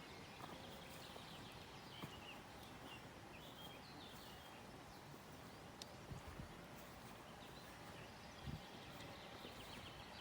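Faint outdoor ambience: a steady low background hiss with scattered faint bird chirps and a few soft ticks.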